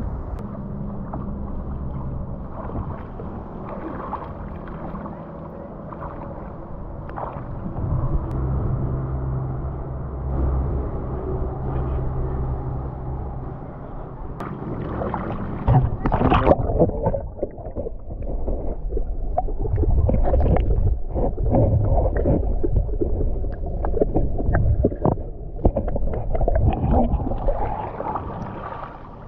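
Muffled river water sloshing and splashing around a GoPro on a tube, dull as if the camera is at or under the surface. A low, steady hum with a few held low tones runs through the first half, and the choppier splashing grows louder after about fifteen seconds.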